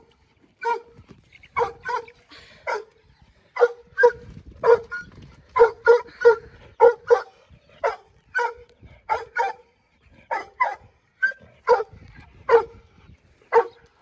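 A dog barking over and over in short barks, roughly two a second, with a few brief pauses.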